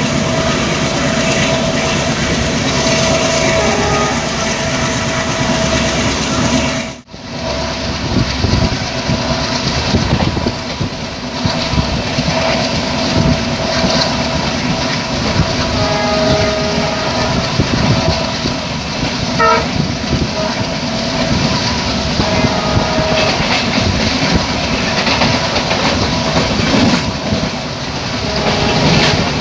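Passenger coach running at speed on a diesel-hauled train: rumble and clatter of wheels on rail with rushing wind. The WDG3A diesel locomotive's horn sounds off and on ahead, and the sound breaks off briefly about seven seconds in.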